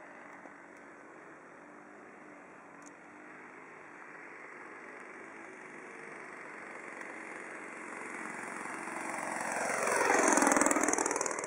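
Radio-controlled model airplane engine droning in flight. It grows steadily louder and makes a loud close pass about ten seconds in, then fades.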